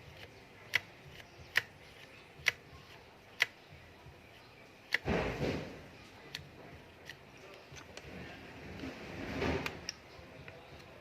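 Sharp small clicks about once a second, then two longer scraping rustles, from hands working on a fishing reel and its small parts.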